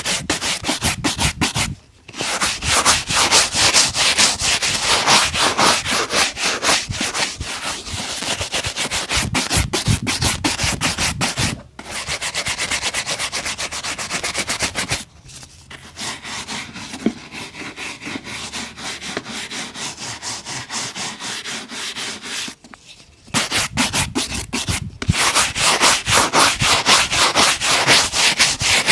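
Rapid back-and-forth brushing or rubbing strokes on a leather shoe, done by hand. The strokes break off briefly about two and twelve seconds in, go quieter for several seconds in the middle, then pick up loudly again near the end.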